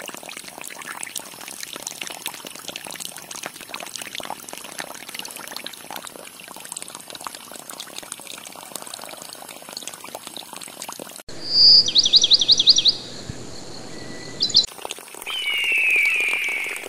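A thin stream of water pouring and splashing from a miniature pump's outlet pipe. About eleven seconds in, it gives way abruptly to birdsong: a quick run of high chirps, then a falling call.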